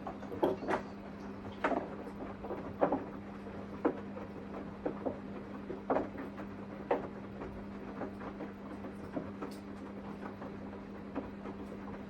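Samsung washing machine running: a steady hum with irregular light clicks and knocks, roughly one a second.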